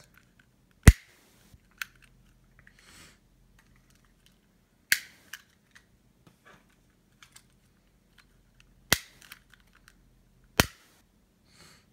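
A handheld lighter being struck over and over to get it lit: four sharp clicks a few seconds apart, with fainter ticks in between.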